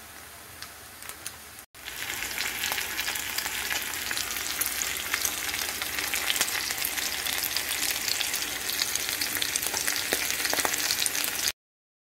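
Bacon, hash browns and eggs sizzling in a frying pan, the bacon frying in its own fat with a steady crackle and scattered pops. It is quieter at first, louder and closer after a brief break about two seconds in, and cuts off abruptly near the end.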